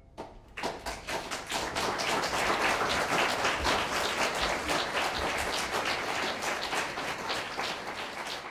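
Concert audience applauding: clapping breaks out at once and quickly builds to steady applause, easing slightly near the end.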